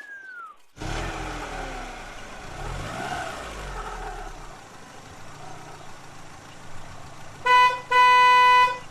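A motor vehicle's engine runs steadily as it draws near, then its horn honks twice near the end: a short toot, then a longer blast.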